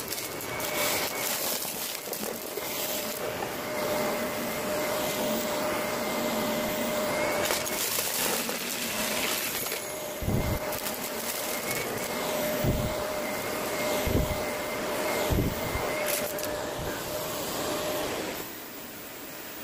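Vacuum cleaner running over rugs and carpet, sucking up scattered glitter and bits of debris, with a steady whine over its rushing air. Several short low thumps come in the second half, and it drops in level near the end.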